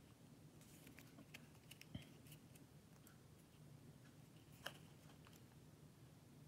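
Near silence with a few faint clicks from handling stiff game cards, two of them a little louder, about two seconds in and just before five seconds.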